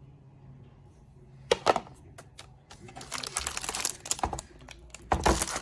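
Typing on an Arteck slim wireless keyboard: a few key clicks about a second and a half in, then a dense run of key clatter, and a louder cluster of clicks near the end.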